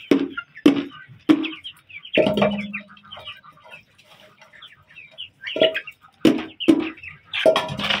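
A flock of young chickens clucking and peeping as they feed together, with several short, sharp clucks spaced through it and a longer call a couple of seconds in.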